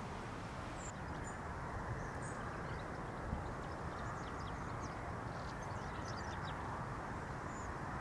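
Small birds giving short, high chirps here and there over a steady low rush of wind.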